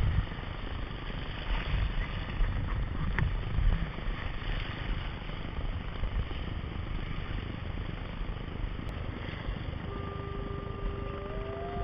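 Seawater churning and splashing around a kayak in surging whitewater, with wind buffeting the deck-mounted microphone in uneven gusts during the first few seconds. About ten seconds in, a thin steady tone comes in, followed by a sound that rises in pitch and then drops.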